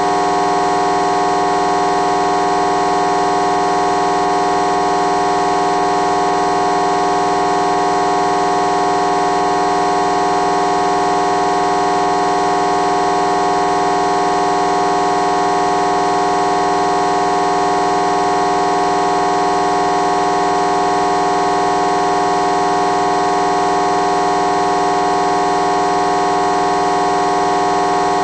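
A loud, steady drone of several held tones that does not change at all.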